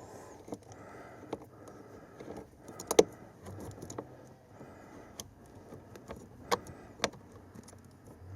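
Scattered metallic clicks and light taps from hand tools and screws as the blower motor's mounting screws are tightened by hand, with a sharp click about three seconds in and two more near the end.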